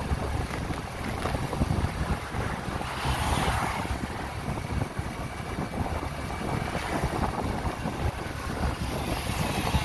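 Wind buffeting the microphone of a moving open vehicle, over rumbling road and engine noise, with the hiss swelling briefly about three seconds in.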